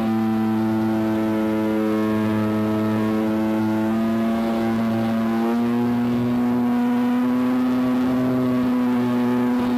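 Model airplane engine running at a steady, high pitch, recorded from on board the plane; its pitch shifts slightly about five and a half seconds in.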